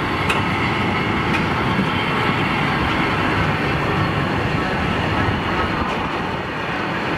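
Freight train's bogie wagons, including sliding-wall vans, rolling past: a steady rumble of wheels on rail, with a couple of sharp clicks in the first second and a half.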